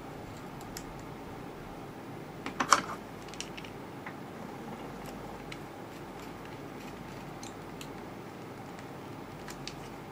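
Light clicks and taps of hands handling a plastic HP 8100 printhead, with a quick cluster of sharper clicks a little over two seconds in, over a steady hiss.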